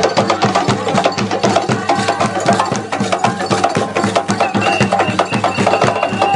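Balafon (West African wooden xylophone) music played live in fast, even strokes for a Kuranko traditional dance.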